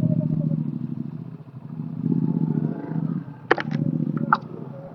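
Motorcycle engine running at low speed on a rough dirt track, its note rising and falling with the throttle. A few sharp rattling clacks come about three and a half and four seconds in as the bike goes over bumps.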